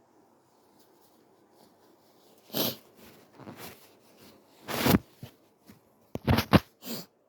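A person's short, breathy nasal and mouth sounds during a sneeze fit: a string of sharp breaths and soft stifled bursts. The loudest is about five seconds in, with a quick cluster of three near the end.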